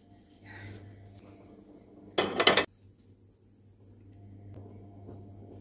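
A bowl clattering briefly against a stone countertop, just over two seconds in, over a low steady hum.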